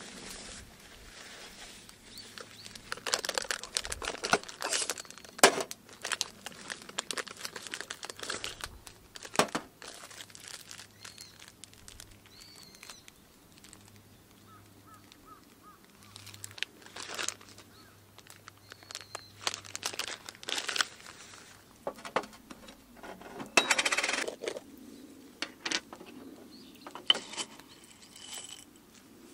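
Hands rummaging in a drawstring bag of coffee gear: rustling fabric and plastic bags, with sharp clinks and knocks as metal items are taken out and set down. Near the end a plastic lid is twisted off a glass jar and coffee beans are scooped out with a wooden spoon.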